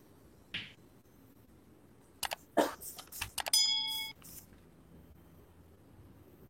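Several sharp clicks and knocks about two seconds in, followed by a brief bright metallic ding that rings for about half a second and stops.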